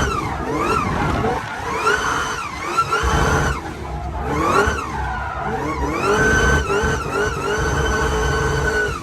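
Car engine revving hard, its pitch climbing and dropping again and again, then held high for about the last second and a half.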